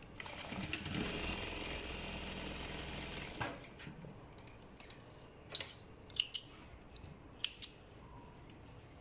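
Electric sewing machine stitching a dart: it runs fast and steady for about three seconds, then stops. A few light clicks follow.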